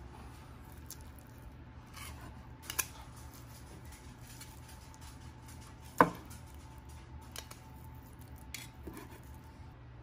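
Chef's knife cutting cooked chicken on a wooden butcher block, held with metal tongs: scattered light taps and clicks of blade and tongs, with one sharp knock of the knife on the board about six seconds in and a smaller pair of clicks near three seconds.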